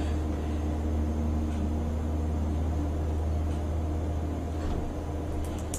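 Steady low rumble with a few faint clicks near the end.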